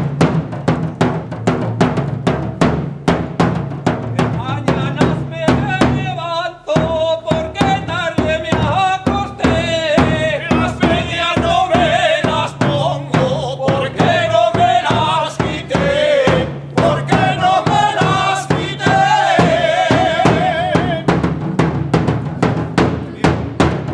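A large bass drum beaten with a stick in a steady beat, joined about four seconds in by a group of men singing a traditional confraternity song. The singing breaks off briefly and stops shortly before the end, leaving the drum alone.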